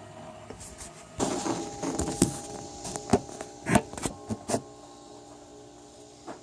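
3D printer running, its stepper motors giving a steady whine, with several sharp clicks and knocks over it between about two and four and a half seconds in.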